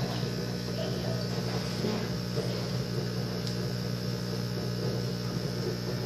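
Steady low electrical hum of running aquarium equipment.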